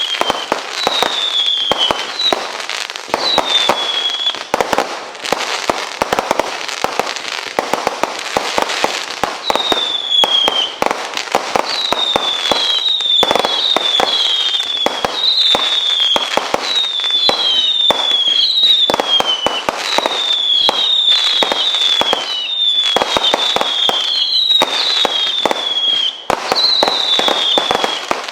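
A firework cake firing a rapid run of shots and bangs, many with short falling whistles that come thickly from about nine seconds in.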